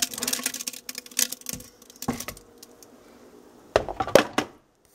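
Blended tomato pulp being scraped out of a food processor bowl into a stainless steel stock pot: a run of small clicks and scrapes, then a few louder knocks about four seconds in.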